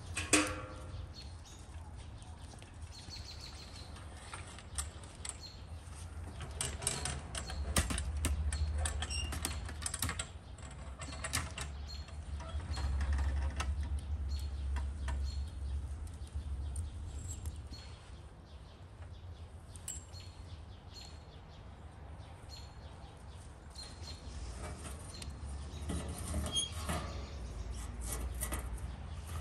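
Scattered clicks and knocks of something being handled, with faint short bird chirps recurring and a low rumble underneath; a sharp click near the start is the loudest sound.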